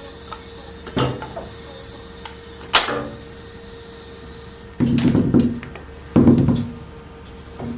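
Wooden pieces being handled: two short sharp knocks, then two heavier, longer clunks with some scraping, over a faint steady hum.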